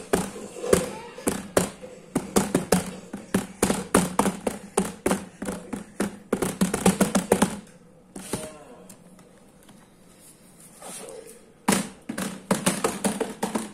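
A toddler's hands slapping quickly and unevenly on the bottom of an upturned plastic laundry basket, drumming on it. The taps pause for a few seconds in the middle, then start again near the end.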